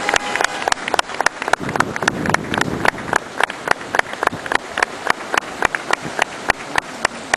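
Spectators clapping by hand, a brisk run of distinct, irregular claps at about five a second rather than a dense wash of applause.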